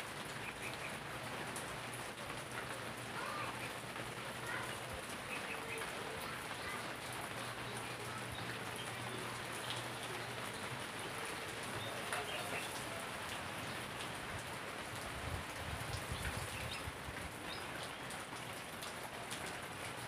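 Steady rain falling on leafy garden plants, an even unbroken wash of drops on the foliage.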